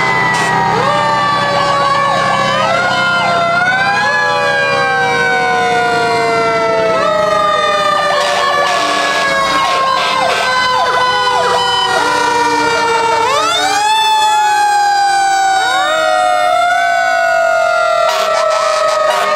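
Several fire truck sirens sounding at once, overlapping, each repeatedly winding up quickly and then falling slowly in pitch.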